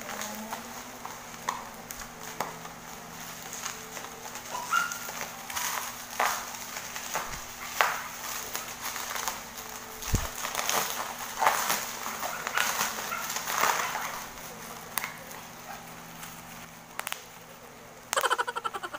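Plastic mailer and bubble wrap crinkling and tearing as a parcel is opened by hand, with scattered crackles. Near the end there is a quick run of sharp crackles as the bubble wrap is pulled out.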